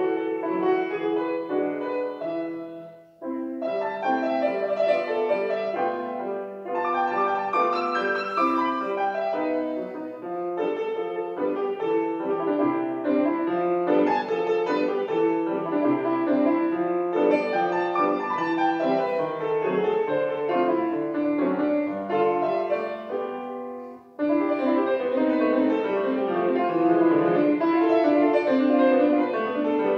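Solo grand piano playing a classical piece, with two short pauses, about three seconds in and about 24 seconds in, and a louder passage after the second.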